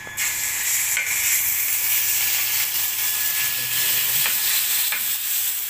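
Minced chicken sizzling in hot oil in a frying pan: a loud, steady sizzle that starts suddenly as the meat hits the oil, with a few light clicks.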